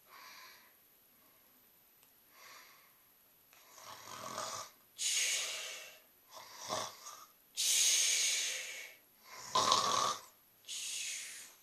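A person snoring: a run of noisy breaths, faint at first and much louder from about four seconds in.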